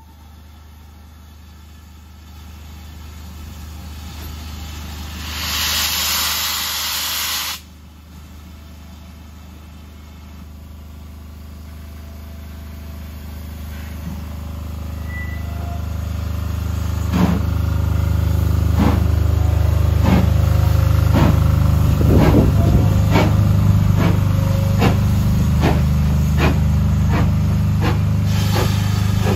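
Great Western steam tank locomotive starting a train. There is a rush of steam for about two seconds that stops suddenly, then exhaust chuffs that begin slowly and quicken. A steady low rumble under them grows louder.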